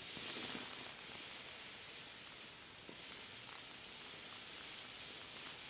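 Low-noise category F2 ground fountain firework spraying sparks with a steady hiss, a little louder in the first second after it catches.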